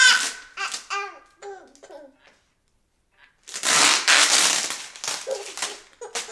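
Plastic wrapping crinkling and rustling as a vacuum-packed foam ball pit is unwrapped by hand, in loud bursts at the very start and again from about halfway through. In between, a baby babbles softly.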